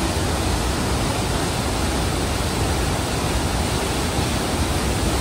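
Fryingpan Creek's white water rushing down a rocky cascade: a steady, full noise of falling water.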